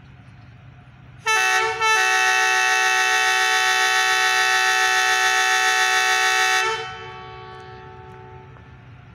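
Diesel locomotive's air horn sounded for departure: a short blast, then straight after it a long steady blast of several tones sounding together, which cuts off and dies away in a fading echo.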